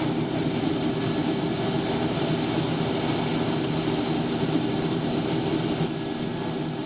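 Piper Meridian's Pratt & Whitney PT6A turboprop running at low taxi power, heard from inside the cabin: a steady hum with a thin, high whine over it.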